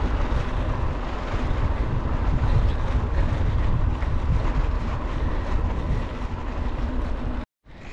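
Steady riding noise from a bike moving down a dirt road: wind rushing over the microphone with the rumble of wide mountain-bike tyres rolling on the gravel. It cuts off abruptly near the end.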